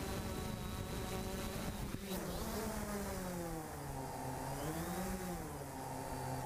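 3DR Solo quadcopter's motors and propellers buzzing steadily, then a brief knock about two seconds in as it sets down in tall grass. The props keep spinning after touchdown, their buzz wavering up and down in pitch.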